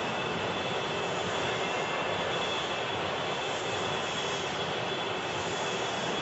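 Steady, unchanging machinery noise of a propeller workshop floor, an even rush with a faint high whine held throughout.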